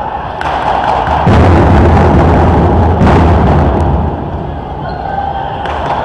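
Taiko drum ensemble playing: rapid, dense strikes with heavy low booms, growing loud about a second in and easing off after about four seconds.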